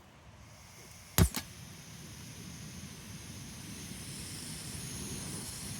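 Two sharp clicks about a second in, then the steady hiss of cooking on a camping gas stove, slowly growing louder.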